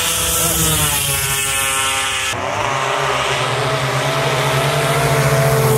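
Racing snowmobile engines at full throttle as two drag sleds run down the strip, their pitch falling as they pull away. About two seconds in, the sound cuts abruptly to another steady, high-revving engine drone.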